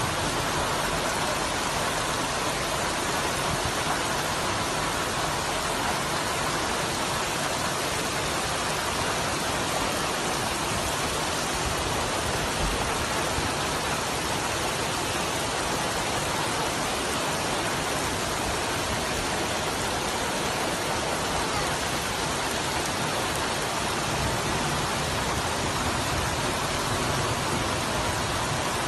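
Flash-flood runoff cascading down a rocky cliff in many waterfalls: a steady, even rush of falling water.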